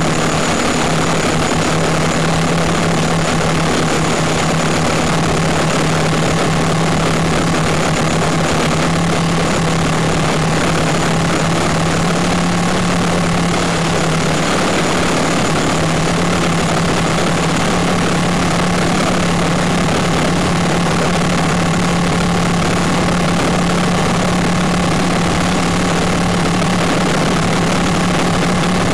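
Quadcopter's electric motors and propellers heard from on board in flight: a steady low drone over a loud rushing noise, shifting slightly in pitch about halfway through.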